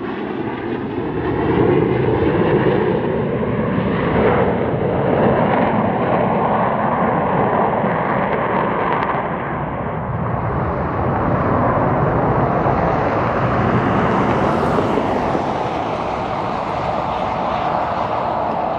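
Twin jet engines of a two-seat Boeing Super Hornet-family fighter on landing approach: a steady roar with a whine that falls in pitch over the first few seconds as the jet passes. The roar carries on while the jet touches down.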